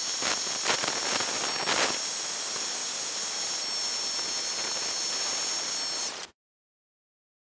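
Electric heat gun running: a steady blowing hiss with a high fan whine, and a few light knocks in the first two seconds. The sound cuts off suddenly near the end.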